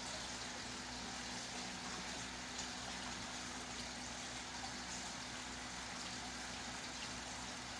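Steady background noise: an even hiss with a faint low hum.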